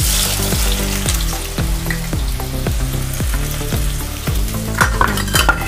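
Finely chopped onions sizzling loudly as they hit hot oil in an iron kadhai, a dense steady hiss. A few spatula scrapes near the end, over a background music beat.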